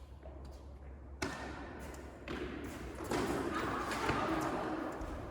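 A single sharp tennis ball impact about a second in, ringing in the big indoor court, followed by a rise of reverberant hall noise.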